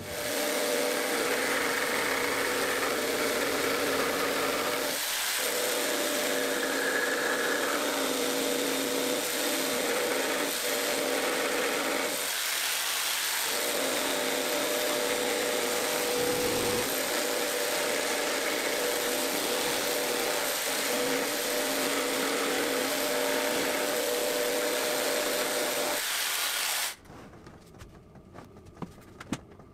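Barrel-grip jigsaw cutting through a chipboard worktop: the motor runs steadily under load with two brief dips, then stops abruptly near the end.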